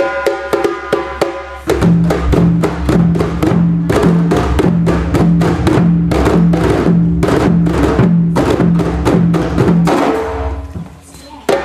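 Djembe drums played by hand in a fast rhythm of sharp slaps and ringing tones. A low, pulsing beat joins about two seconds in, and the playing thins out briefly near the end before picking up again.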